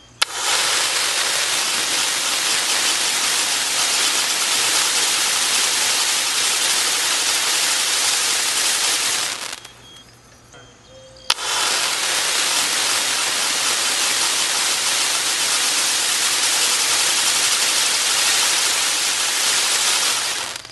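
Pyropak long-duration gerbs on a spinner fired twice. Each is lit with a sharp crack, then burns with a loud, steady hiss of spraying sparks for about nine seconds. The first cuts off about nine and a half seconds in; after a short lull the second cracks alight near eleven seconds and hisses on until just before the end.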